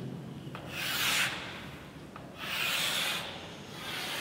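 Chalk scraping on a chalkboard as lines are drawn: three long hissy strokes, the first about half a second in, the others near the middle and end.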